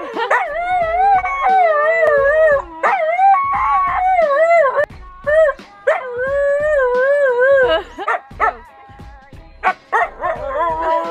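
Siberian huskies howling together: long wavering howls, at times two dogs overlapping. The howling breaks off about eight seconds in and starts again near the end.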